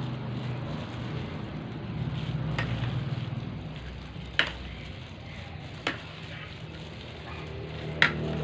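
Sliced meat being tossed with seasonings by hand on a plate, a metal spoon clinking against the plate four times, the last the loudest. A steady low hum runs underneath.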